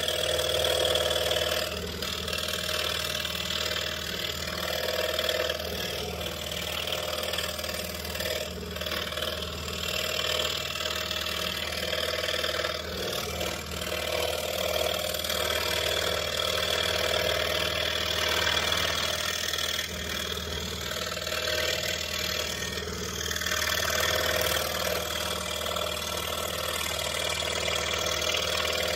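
Pegas scroll saw running with a No. 3 reverse-tooth blade, cutting a small dinosaur shape out of a wooden key fob blank. A steady motor hum with the blade's cutting noise swelling and easing as the piece is turned through the cut.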